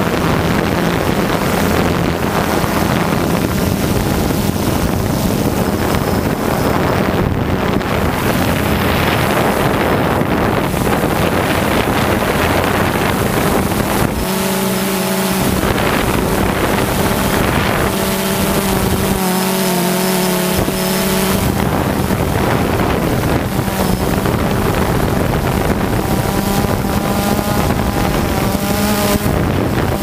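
DJI Phantom 2 quadcopter's motors and propellers humming steadily, picked up by the GoPro riding on it, with wind rushing over the microphone. The hum's tones come through more clearly for a few seconds around the middle and again near the end.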